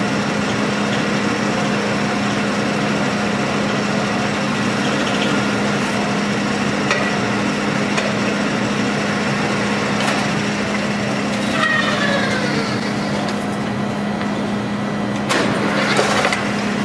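Metal spinning lathe running steadily with a hum as a hand spinning tool is pressed against the turning sheet-metal dome. A short squeal falling in pitch comes about twelve seconds in, and a brief burst of scraping near the end.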